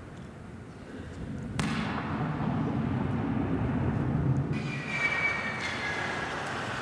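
A sudden explosion about a second and a half in, followed by a low rumble from the blast. About four and a half seconds in, a MiG-31 jet's engines take over, running with a high whine that falls slightly.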